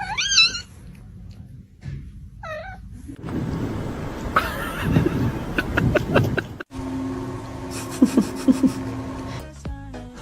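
A cat meowing: one short call right at the start and a second short one about two and a half seconds in, followed by several seconds of mixed noise that cuts off abruptly partway through.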